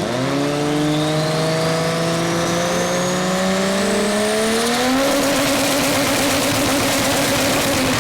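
Drag-racing engine under full throttle, its pitch climbing steadily for about five seconds with a thin high whine rising with it, then holding at a steady high pitch.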